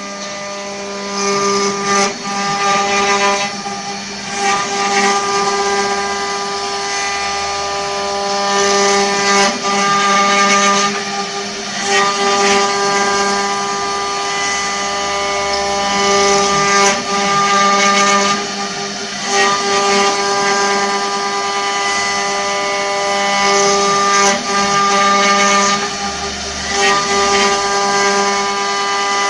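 Multi-spindle CNC wood router running: a steady whine from the spindles under a rough hiss of the bits cutting wood that swells and eases every few seconds.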